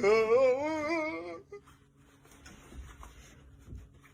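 A drawn-out, wavering vocal call lasting about a second and a half, its pitch rising slightly and swaying up and down several times a second; it then falls away to quiet.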